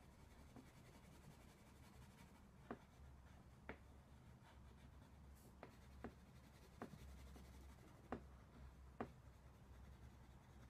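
Faint scratching of a crayon colouring on paper, with scattered light ticks about a second apart, over a low steady room hum.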